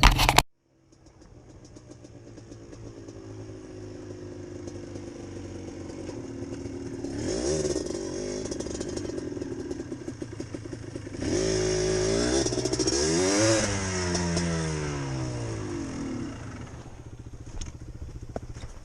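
ATV engine running under way, revving up and down, with two louder bursts of revving about seven and eleven seconds in, the pitch falling away after the second.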